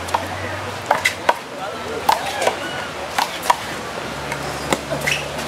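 Handball rally: the rubber ball smacking against open hands, the concrete wall and the pavement, about ten sharp, irregularly spaced smacks.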